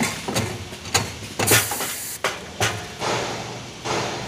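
Semi-automatic tissue multi-bag packing machine working: a string of sharp clacks and short hisses of compressed air from its pneumatic mechanism, the longest hiss about a second and a half in. Plastic-wrapped tissue packs rustle as they are pushed in by hand.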